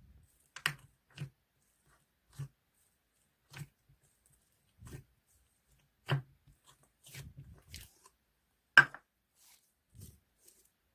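Slime being handled: a string of short sticky pops and clicks, roughly one a second, with a sharper, louder pop near the end.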